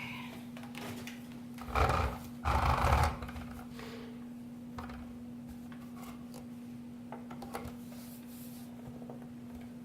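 Handling noise while a power cord is plugged in: two short rustling, scraping bursts about two and three seconds in, then scattered light clicks and taps, over a steady low hum.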